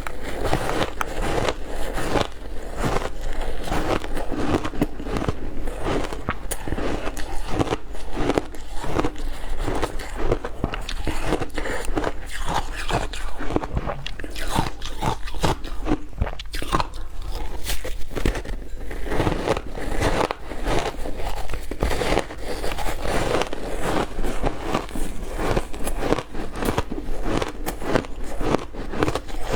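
Close-up crunching of ice being bitten and chewed, a continuous run of sharp cracks and crackles with no pause.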